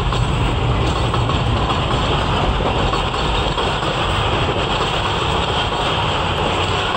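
Karachi Express passenger coaches passing at speed through a station, with the steady noise of their wheels running on the rails.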